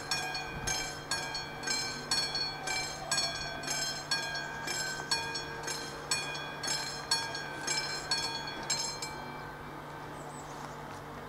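Level-crossing warning bell of an AŽD 97 signal, a classic bell struck about twice a second with a ringing tone, which stops about nine seconds in as the barriers finish rising and the crossing clears.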